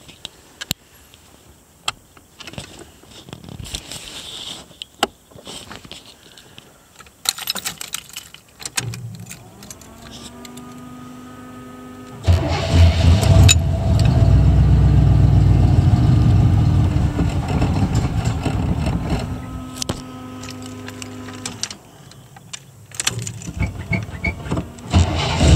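1935 Buick sedan street rod's engine on a cold start: clicks and rustling, then a rising whine for a few seconds before the engine catches about halfway through and runs loudly. It cuts out about ten seconds later and fires again right at the end.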